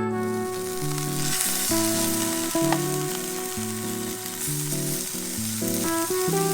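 Food sizzling as it fries in a pan, a steady hiss.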